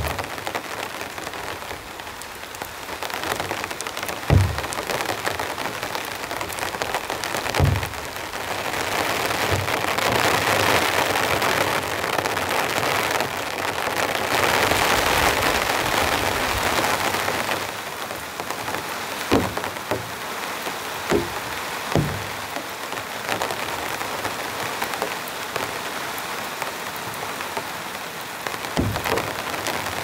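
Heavy rain falling on a tarp overhead, a steady hiss that swells louder for several seconds in the middle, with a few short heavier thuds scattered through it.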